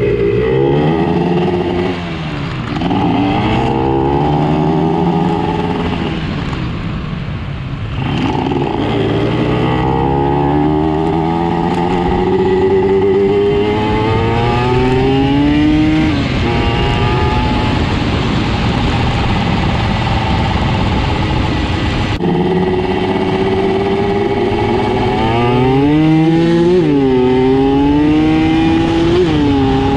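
Motorcycle engine under hard acceleration, its pitch climbing through each gear and dropping back at the gear changes. Near the end the revs flare up sharply twice, which the rider puts down to a badly slipping clutch.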